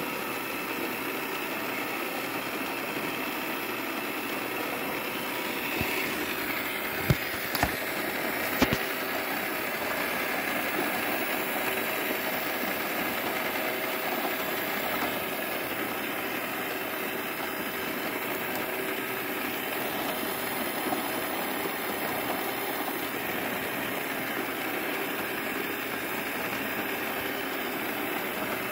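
Gearation toy gear set running: its small battery motor and meshing plastic gears whir steadily. A few sharp clicks come about seven to nine seconds in.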